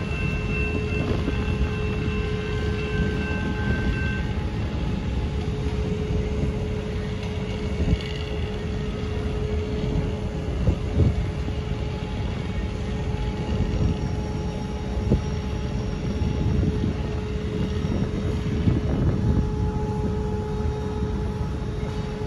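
Steady low rumble of diesel switcher locomotives working out of view, with a constant hum running through it.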